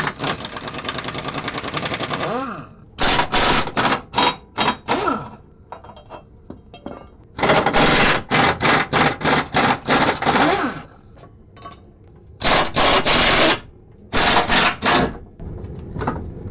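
Impact wrench hammering in repeated bursts of rapid blows, a long burst at first and then several shorter ones with pauses between: the subframe bolts being loosened so the subframe can be lowered.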